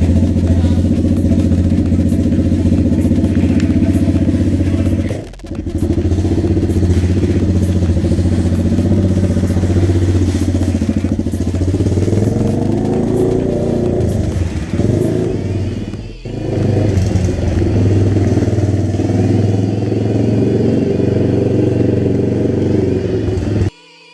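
Avantis 125 Classic pit bike's single-cylinder engine running loud, its pitch rising and falling as the throttle works, with two brief dips where the sound drops away for a moment. It cuts off suddenly near the end.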